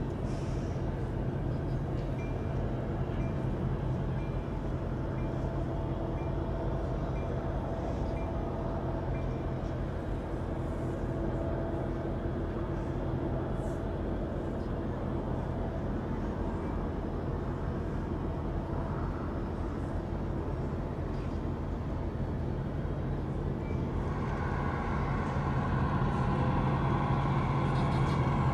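HO scale model trains running on a layout: a steady mechanical hum with a few held tones. It grows louder and takes on higher tones a few seconds before the end.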